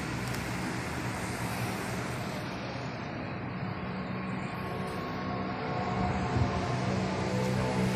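Street traffic noise with a steady low engine hum that grows louder in the second half.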